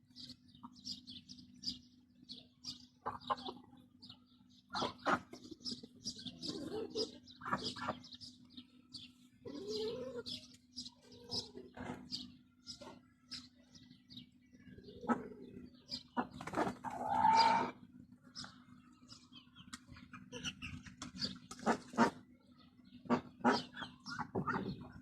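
Chickens in a coop clucking, with many short high chirps throughout and one louder, longer squawk about two-thirds of the way through. A faint steady hum runs underneath.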